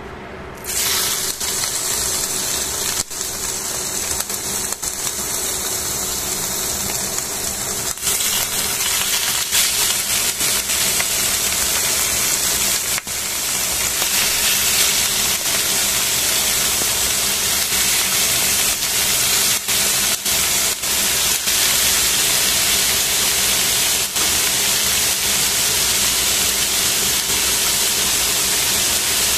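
Thin slices of pork sizzling in hot oil in a stainless steel pan. The sizzle starts suddenly about a second in as the meat hits the pan, then runs loud and steady. A few sharp clicks from the tongs against the pan.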